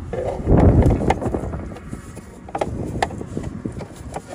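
Plastic cover panel under a car's glovebox being handled and fitted back on: a loud rustling scrape about half a second in, then a few sharp plastic clicks as it is pushed into place.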